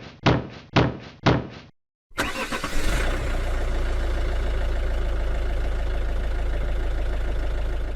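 Diesel pusher motorhome engine: a few short cranking bursts, a brief pause, then the engine starts about two seconds in and runs steadily with a deep low hum.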